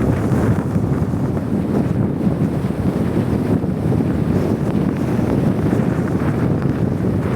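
Strong blizzard wind blowing steadily over the microphone: a low, rumbling rush with small gusts and no break.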